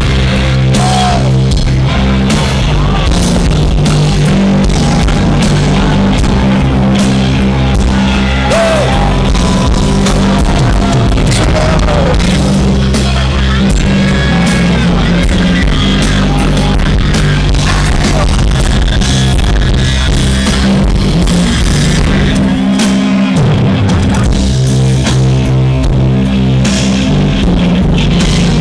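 Live rock band playing at full volume: drum kit, heavy distorted bass and electric guitar, with sliding, gliding high notes over the top.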